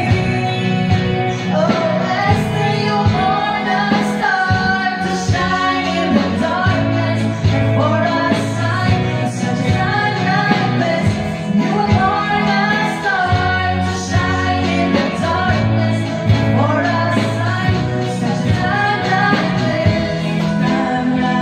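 Two women singing a gospel song together into microphones, amplified through the hall's speakers, with guitar accompaniment underneath.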